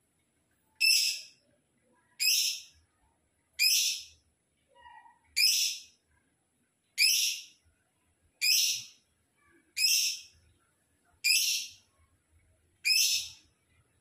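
A lovebird calling: nine short, shrill, high-pitched calls, evenly spaced about a second and a half apart.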